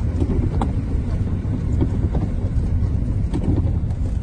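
Low, steady rumble of a vehicle running, with a few faint clicks.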